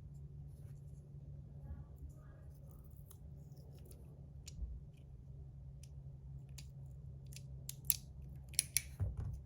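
Scattered small clicks and snips of tape being cut and fitted inside a 3D-printed fidget slider, with a cluster of louder clicks near the end.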